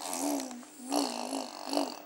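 A baby blowing raspberries with her voice humming through her lips, three in a row: one long one, then two shorter ones after about a second.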